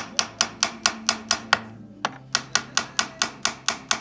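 Rapid, evenly spaced hammer taps on metal, about six a second, with a short break a little before halfway, as the bushing is tapped home on the repaired woodworking-machine shaft.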